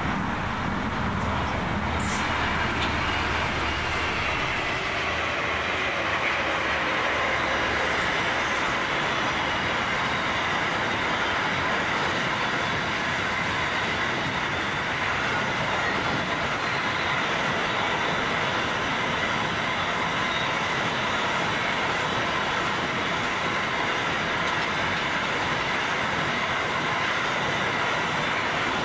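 Freight train wagons rolling past: steel wheels on the rails making a steady rumble, with clicking over the rail joints and a thin, faint wheel squeal. A low hum fades out in the first few seconds.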